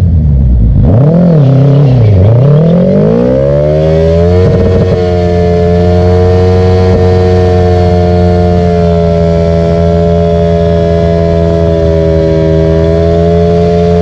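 Suzuki Hayabusa's inline-four engine revved in a few quick rises and falls, then held at high revs for about ten seconds in a tyre-smoking burnout. The revs drop away near the end.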